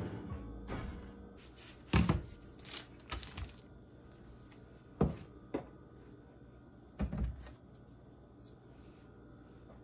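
An oven door shutting with a low thud about two seconds in, then scattered light knocks and clunks of ingredient containers being set down on a kitchen counter, a few strokes around the middle and one more a couple of seconds later.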